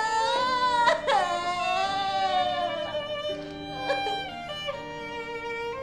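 Background drama score: a slow violin melody with long held notes over sustained accompaniment.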